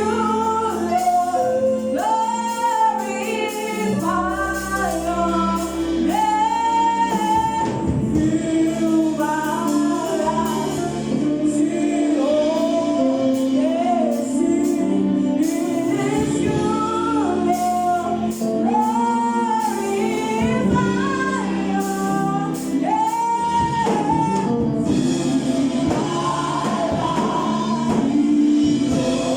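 Church choir singing a gospel song with instrumental backing: held bass notes under the voices and frequent light percussion hits.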